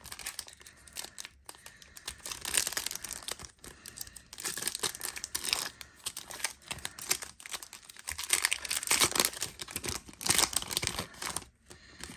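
Foil wrapper of a Panini Contenders Football trading-card pack being torn open and crinkled by hand. The crackling comes in fits and starts, with several louder crinkles separated by quieter moments.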